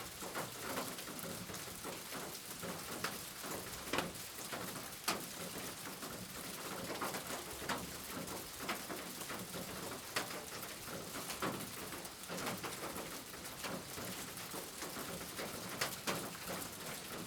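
Steady rain falling, with louder single drops striking a hard surface at irregular moments, the sharpest about four, five, ten and sixteen seconds in.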